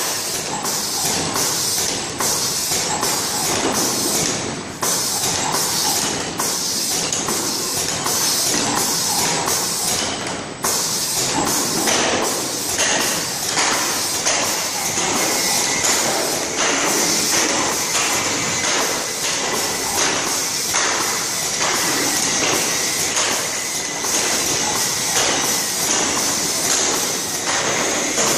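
A delta pick-and-place robot and its packaging line running: steady machine noise with a regular clatter, about two sharp clicks a second.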